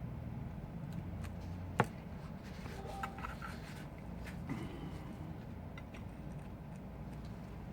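Small tools and parts being handled during work on a phone: one sharp click a little under two seconds in and a few faint ticks, over a low steady hum.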